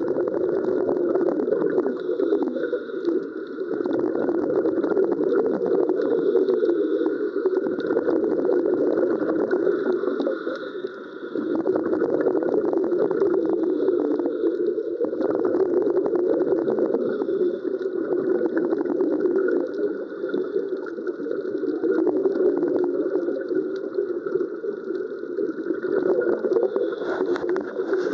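Continuous bubbling and crackling heard underwater during underwater wet welding, with a dense fizzing crackle over a steady low bubbling that dips briefly about eleven seconds in.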